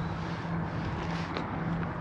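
A motorcycle engine running at low revs: a steady low hum that fades in and out, heard over open-air background noise.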